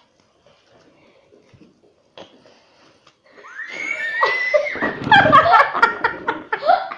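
Crunchy slime faintly crackling and popping as it is squeezed and stretched. About three seconds in, a much louder wavering, high-pitched vocal cry starts and runs on with sharp clicks over it.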